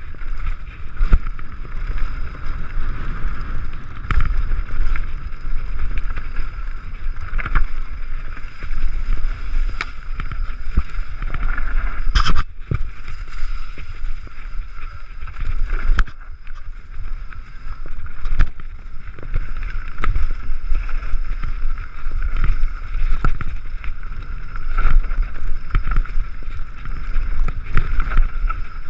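Mountain bike descending a dry dirt trail at speed: tyres rolling on dirt and the bike rattling and knocking over bumps, with wind buffeting the camera microphone. One sharper knock about twelve seconds in.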